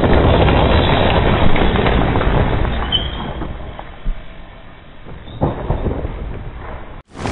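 Mountain bike tyres rolling and scrubbing over a loose dirt trail, a loud rumbling rush that fades over a few seconds. Two shorter rushes come near the end, and the sound cuts off suddenly just before the end.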